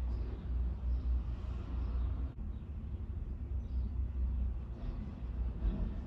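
Steady low rumble with a faint hiss of background noise, no speech.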